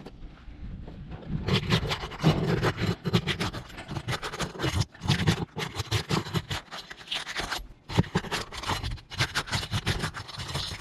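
Irregular, repeated scraping and scuffing against gritty asphalt roof shingles, beginning about a second and a half in and going on in short uneven strokes.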